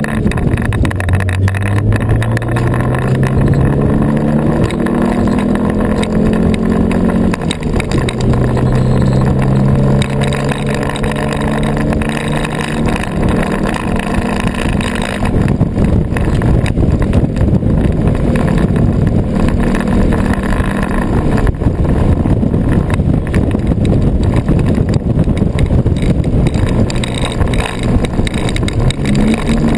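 Turbocharged EJ25 flat-four of a Subaru WRX STI under hard acceleration, heard from inside the cabin. The pitch climbs in one gear, drops at a shift about seven seconds in, and climbs again until about fifteen seconds in. After that it gives way to rougher, noisier running with heavy road and wind noise, plus the buzz of a rattling camera housing.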